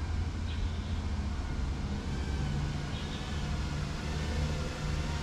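Steady low rumble with the faint, wavering whine of an FPV quadcopter's motors in flight, its pitch shifting as the throttle changes.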